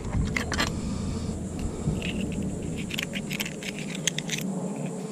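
A metal spoon scraping and clicking against bay scallop shells as the meat is scraped out of them, in several short runs of clicks, over a low steady rumble.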